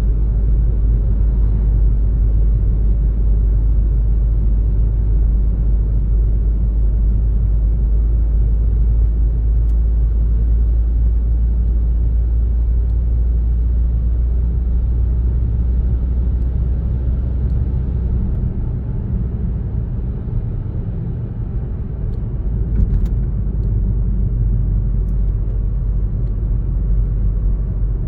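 A car driving along a road: a steady low rumble of road and engine noise. It eases slightly for a few seconds past the middle, with a faint brief tick a little later.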